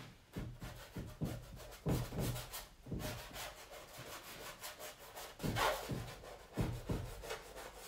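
Quick, uneven scrubbing strokes of a hand-held mark-making tool against a stretched canvas, about two scrapes a second, with the firmest strokes near the middle and late in the run.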